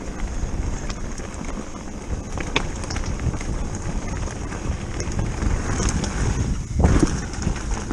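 Electric mountain bike rolling fast down a loose stony track: wind buffeting the microphone over the rumble and crunch of tyres on gravel and rocks, with scattered rattles and a louder jolt about seven seconds in.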